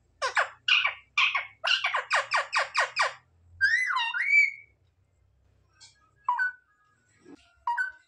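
Indian ringneck parakeet calling: a fast run of about ten sharp falling squawks over three seconds, then a warbling whistle that glides up and down, then a couple of short chirps near the end.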